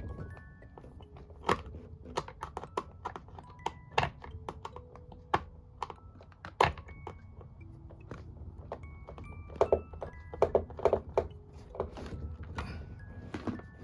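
Irregular clicks, taps and clatter of small hard parts being handled, several in quick succession about ten seconds in, over background music of short held notes stepping from pitch to pitch.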